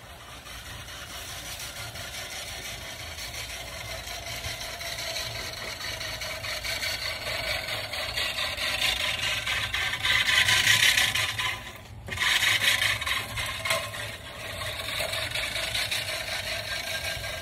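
Manual push reel mower cutting grass, its blades running with a steady scraping rattle that grows louder as it comes close. There is a brief break about twelve seconds in before it carries on.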